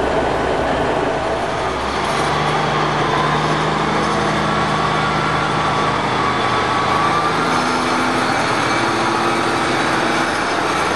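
Diesel multiple-unit engines running at a station platform. About two seconds in the sound changes, and a unit's engine note then steps up in pitch twice as the train pulls away.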